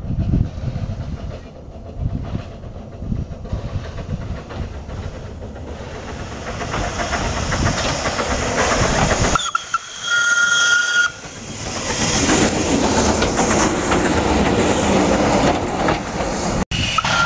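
Steam trains running on adjacent tracks, heard from beside a carriage: continuous rumble and wheel clatter that grows louder as the other train draws close and passes. About ten seconds in, a steam whistle gives one steady blast lasting about a second and a half.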